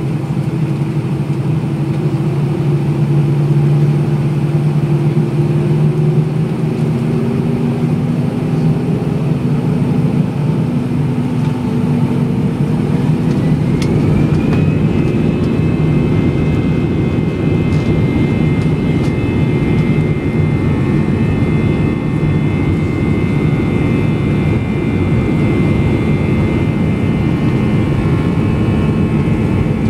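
Airbus A320-200's jet engines heard inside the cabin over the wing as the airliner taxis: a loud, steady jet drone whose engine tones climb slowly, with a higher whine that rises about halfway through and then holds, as engine speed increases.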